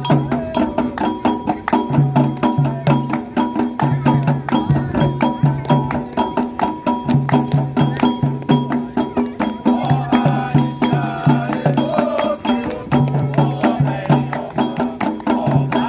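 Candomblé drumming: atabaque hand drums play a fast, continuous toque, with a metal bell keeping time. Voices sing over it from about ten seconds in.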